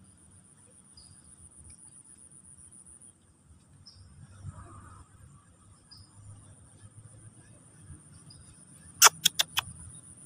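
High, thin insect trilling that runs steadily throughout. About nine seconds in, four sharp clicks come in quick succession and are the loudest sound.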